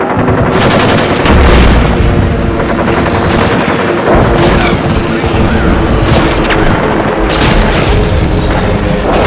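Dubbed-in battle sound effects: several short bursts of rapid machine-gun fire and a deep boom about a second and a half in, over a steady humming drone.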